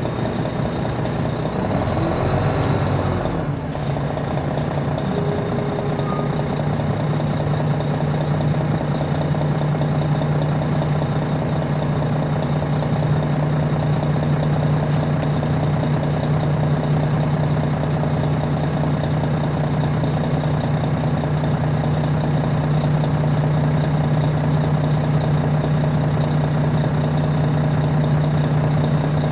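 Detroit Diesel Series 60 diesel engine of a 2002 MCI D4000 coach, heard from on board while the bus is under way. Its pitch rises and falls briefly about two to three seconds in, then holds a steady drone.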